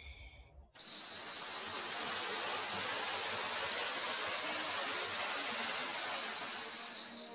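Steady, high-pitched insect chorus over an even hiss. It cuts in abruptly about a second in and stops abruptly at the end.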